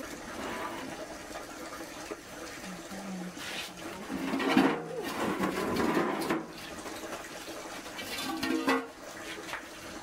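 Water pouring and splashing, swelling louder for about two seconds in the middle and again briefly near the end.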